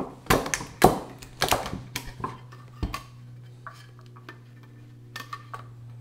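Rubber bands being stretched around a two-part plaster slip-casting mold, snapping and knocking against the plaster as the mold is handled: a run of sharp snaps in the first half, then softer ticks and rubbing. A low steady hum sits underneath.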